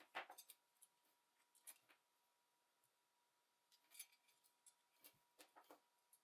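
Faint clicks, taps and short scrapes of small tools and plastic parts as a Logitech G304 wireless mouse is taken apart, coming in scattered little clusters.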